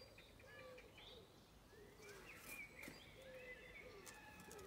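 Faint birdsong: small birds chirping and whistling, with a pigeon cooing low in repeated short phrases.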